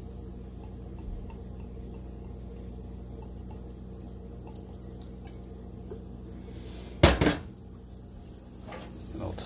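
White wine vinegar poured from a bottle into a stainless steel pan of sautéed mushrooms, over a steady low hum. About seven seconds in, the pan is tossed, with a short, loud double clatter of the mushrooms sliding and landing in the metal pan.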